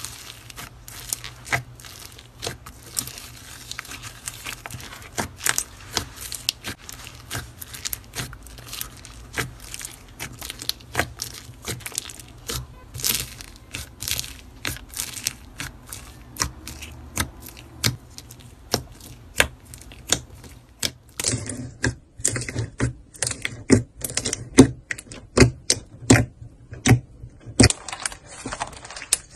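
Hands squeezing and kneading bead-filled slime: a dense, fast crackling and clicking as the beads are pressed and pop. About two-thirds of the way in, the clicks turn louder, sparser and sharper.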